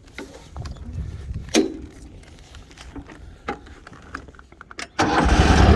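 A few scattered clicks and knocks, then about five seconds in the mower's 24-horsepower Kohler overhead-valve engine starts suddenly and runs steadily and loudly: a cold start that fires right up.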